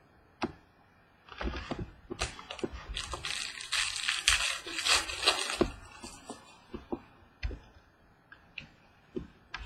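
Trading cards and their packaging being handled: scattered light taps and clicks, with about two and a half seconds of crinkling starting about three seconds in.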